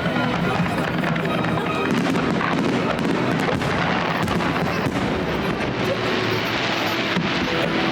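Fireworks display: a continuous dense crackle of bursting shells, with many sharp cracks packed close together.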